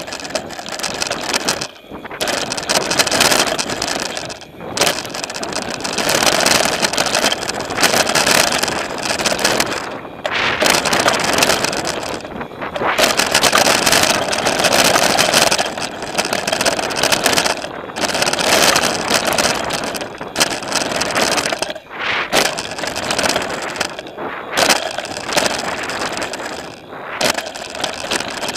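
Mountain bike riding fast down a dirt trail, heard from a camera on the bike: a loud, steady rush of tyre and wind noise, broken by several brief lulls.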